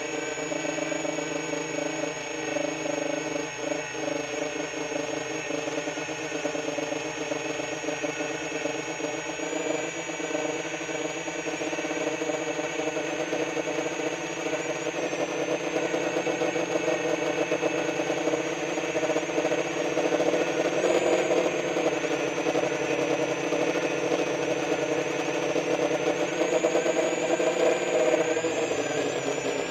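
The brushless motors and 10-inch propellers of a QAV-R 2 XL FPV quadcopter in flight, heard from on board as a steady whirring buzz. The pitch shifts with the throttle, rising briefly about two-thirds of the way through and again near the end. It grows a little louder in the second half.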